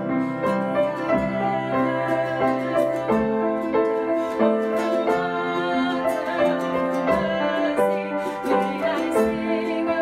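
Upright piano and strummed ukulele playing a slow worship song, with a woman and a man singing along.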